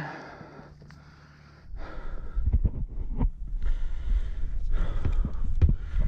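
An angler groans and breathes hard while straining against a heavy fish on a rod and reel. The groan falls in pitch at the start. From about two seconds in, heavy breaths and gasps come over a low rumble with repeated knocks.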